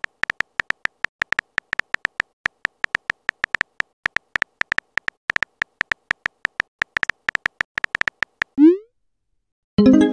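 Phone keyboard tap sounds from a texting app, a rapid run of short clicks about six a second as a message is typed. They are followed by a short rising swoosh as the message is sent and a ringing notification chime near the end.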